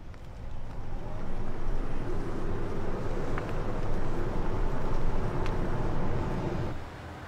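A car driving: engine and tyre noise swelling about a second in, holding steady, then cutting off sharply near the end.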